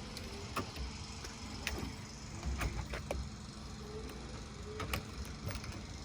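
Scattered clicks and light knocks as the milk cooler's doors are opened and handled, over a low rumble.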